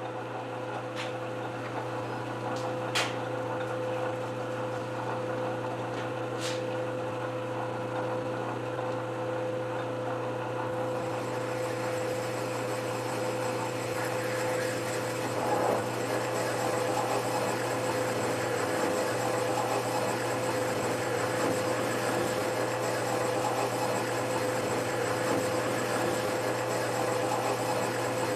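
A metal lathe runs at steady speed with a constant hum. A few light clicks come in the first several seconds. From about eleven seconds in, a rougher hiss joins it as a tool deburrs the inside of a bored hole.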